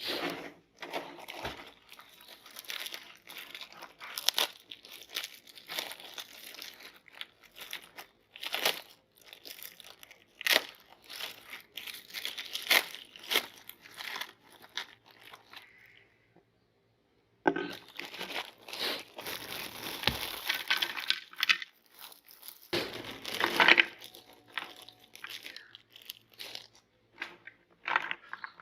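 Crunchy cookies cracking and crunching as they are crushed in a meat grinder: an irregular run of sharp crackles and snaps, with a short pause about two-thirds of the way through.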